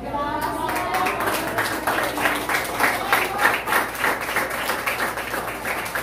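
Audience clapping, starting about half a second in and going on steadily, with voices calling out over it.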